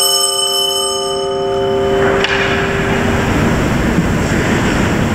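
Altar bell rung at the elevation of the chalice, a single stroke ringing on with several tones and fading out over two to three seconds. About two seconds in, a steady rushing noise takes over.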